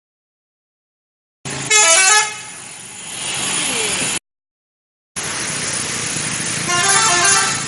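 Indonesian "telolet" multi-tone bus horns playing a quick stepping tune, twice: once about two seconds in and again near the end, in two separate clips with dead silence before and between them. The bus is running beneath, with background noise from the road.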